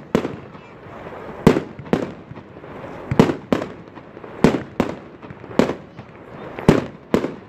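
Aerial firework shells bursting overhead: a string of about ten sharp bangs at irregular intervals, roughly one a second, each trailing off briefly in an echo.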